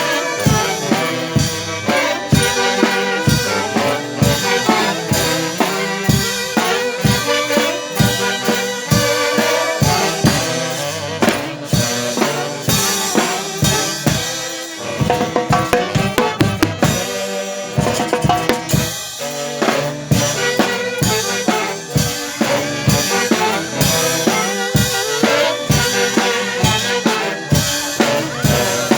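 Music with a drum kit keeping a steady beat of about two hits a second, bass drum and snare, under melodic instruments.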